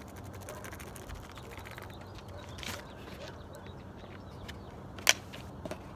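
Light rustling and small taps from handling a paper bag of powdered cement pigment and a plastic bucket, over a steady faint outdoor background. There is one sharp click about five seconds in.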